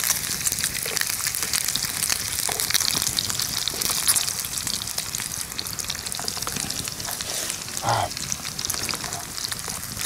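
Bacon sizzling and popping in a frying pan over campfire coals: a steady crackling hiss with many small spits of fat.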